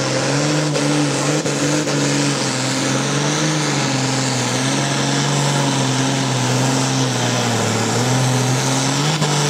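Ford 7000 tractor's diesel engine running flat out under heavy load while pulling a weight sled, a steady loud drone that sags in pitch about eight seconds in and picks back up near the end.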